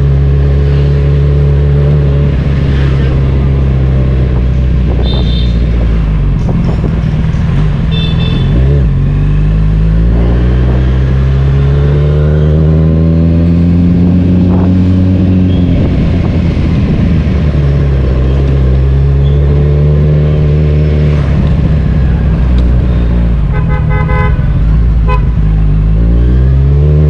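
Kawasaki Z1000's inline-four engine under way, its pitch climbing as it accelerates and dropping back at gear changes. A horn beeps briefly about five and eight seconds in, and several times in quick succession near the end.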